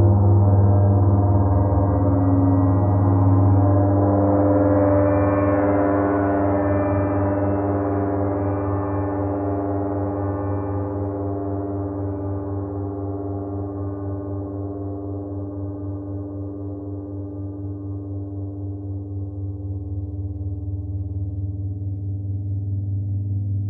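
Large gong ringing on and on with many steady overtones over a deep hum, with no new strike. It slowly fades, then swells again in the last few seconds.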